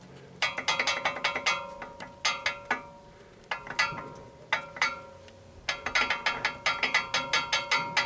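A car's front brake pad being rocked by hand in its caliper: quick runs of metal-on-metal clicking, with the brake disc ringing after each run. Play like this between a worn pad and its caliper seats is what rattles when driving over bumps.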